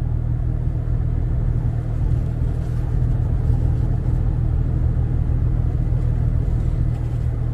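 Steady low rumble of an idling engine, even and unchanging.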